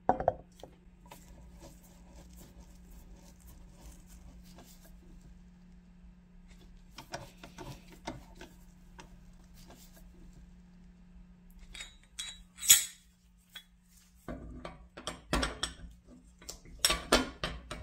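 Metal clinks and knocks from handling the parts of a cast-iron Enterprise hand grinder: a sharp knock at the start, faint scattered clicks, one loud clink past the middle, then a run of clinks and clatter near the end as the iron grinding burr and its shaft are set into the body.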